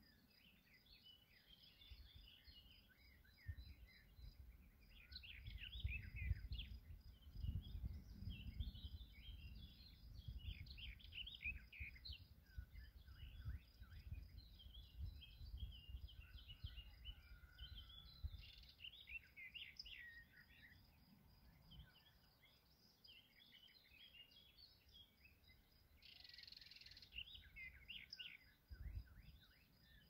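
Birds chirping and singing, many short calls overlapping, over a steady high pulsing trill. A low, uneven rumble rises and falls through the middle.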